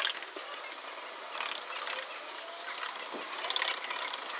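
Quick rubbing strokes on a plastic headlight lens, a rapid scratchy back-and-forth that is loudest about three and a half seconds in.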